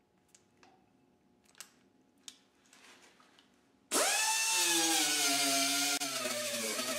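A few faint clicks, then about four seconds in an air-powered right-angle die grinder with a small abrasive disc starts abruptly: a loud high whine that drops in pitch as the disc bears on the steel. It is grinding down and blending the welded seam of a new quarter panel.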